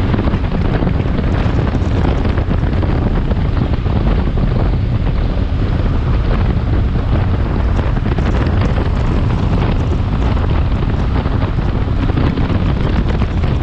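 Steady wind rushing over the microphone of a motorcycle at highway cruising speed, with the Benelli TRK 502X's parallel-twin engine running underneath.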